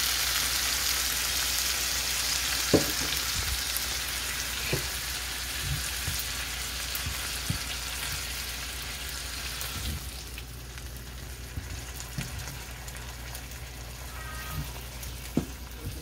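Browned ground beef sizzling in a hot skillet as spaghetti sauce is poured in and stirred. The sizzle eases off about two-thirds of the way through, and a slotted spatula knocks against the pan a few times.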